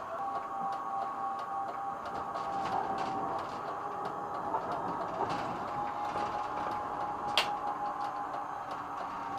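Tram rolling slowly, heard from inside the driver's cab: a steady electric whine from the drive with light clicking and rattling from the wheels and cab, and one sharp click about seven seconds in.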